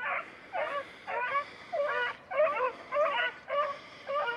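Beagle baying on a hare's scent, a run of bending, goose-like yelps at about two a second, the hound giving tongue as it follows the trail.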